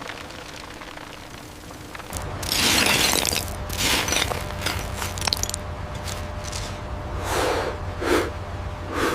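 Stone being broken: a long crunching crash about two and a half seconds in, then a series of shorter cracks and crumbles, over a low steady hum.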